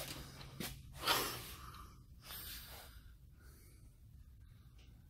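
Quiet indoor room tone with a steady low hum, a soft click, and a few faint breathy exhales close to the microphone, the clearest about a second in.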